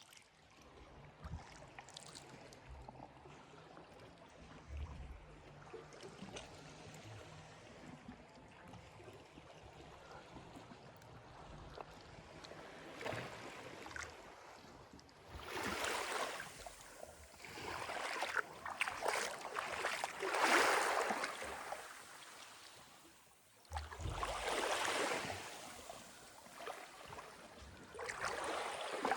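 Sea water washing and lapping, quiet at first and then coming in louder surges of splashing from about halfway through, the strongest around two-thirds in.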